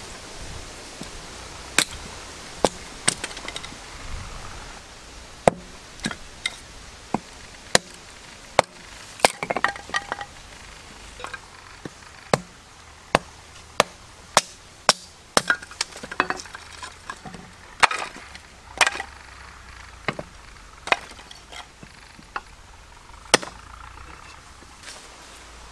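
A blade chopping into wood: a long run of sharp, separate strikes at irregular spacing, roughly one a second, some in quick pairs, stopping shortly before the end.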